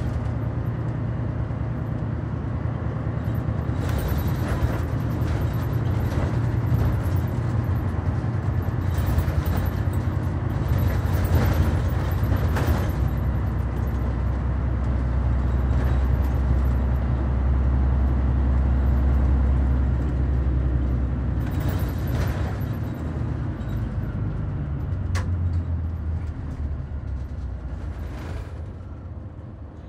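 Mitsubishi Fuso New Aerostar (KC-MP747M) city bus on the move, heard from inside the passenger cabin: a steady deep engine drone that grows stronger midway and falls away near the end, with scattered short rattles and clicks from the interior.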